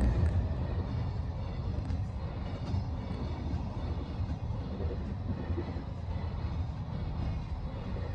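Freight train running past, a steady low rumble of its wheels on the rails.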